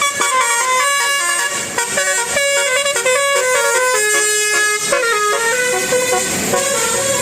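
Telolet basuri musical horn on a bus or truck playing a quick melody of short notes that step up and down, ending on a longer held note.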